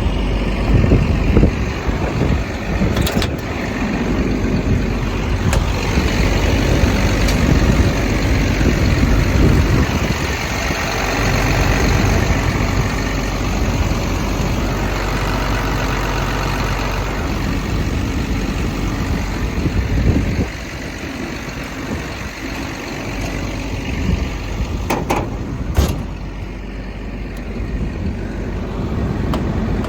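Cummins diesel engine of a hydraulic track excavator running steadily at idle, a little quieter after about twenty seconds, with a few light clicks near the end.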